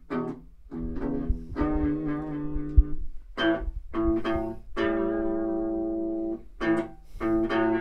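Guitar music: a slow run of plucked notes, several left to ring for a second or more.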